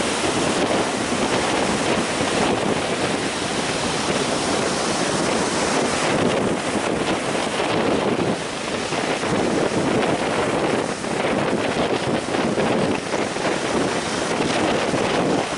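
Rough surf breaking and rushing ashore, with strong wind blowing over the microphone: a loud, steady wash of noise that swells slightly as the waves come in.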